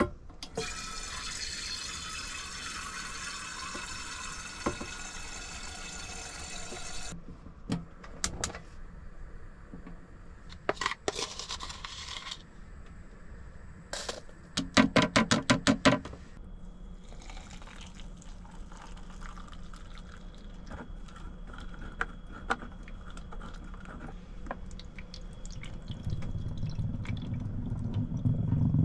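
Water running from a tap into a container for about six seconds, then scattered clicks and clatter of coffee-making gear, a quick run of about ten loud rapid knocks, and a low rumble that grows near the end.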